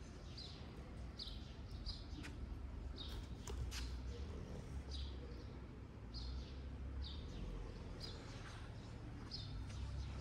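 A bird calling over and over: one short, high chirp falling in pitch, repeated about once a second with a brief pause in the middle. A low steady rumble sits underneath.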